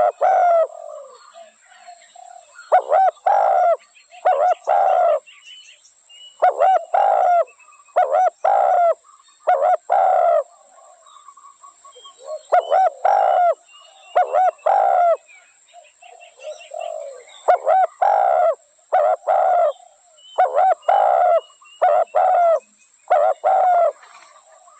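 Spotted dove cooing: repeated phrases of three or four low coos, one phrase every few seconds. Faint high chirps of small birds can be heard between the phrases.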